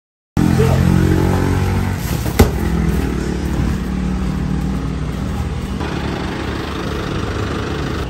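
A vehicle engine running steadily at low speed, with one sharp click about two and a half seconds in.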